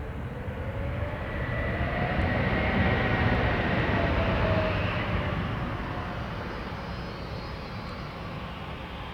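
Embraer E195-E2 airliner's Pratt & Whitney PW1900G geared turbofans passing on landing: a rumble with a whine that swells to its loudest about three to four seconds in, then drops in pitch and fades as the jet goes by.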